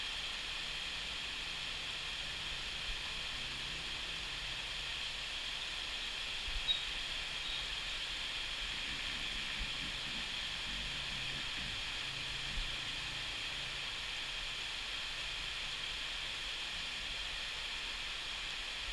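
Rain falling steadily over corrugated metal roofs: an even hiss with no let-up.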